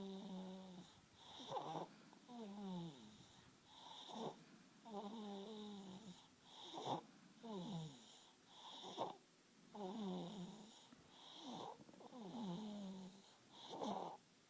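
Steady, rhythmic snoring: about one breath every two and a half to three seconds, each with a wheezy tone that falls in pitch and a short rasping snort.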